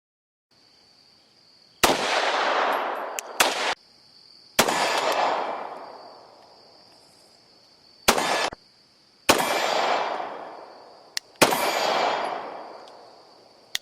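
Single gunshots fired a few seconds apart, each with a long echoing tail, and a few shorter ones cut off abruptly. A steady high insect buzz runs underneath.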